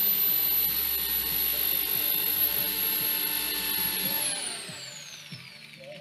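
Electric drill pre-drilling a screw hole through a wooden floor panel into the batten beneath, running steadily with a high whine for about four seconds, then released and winding down in falling pitch.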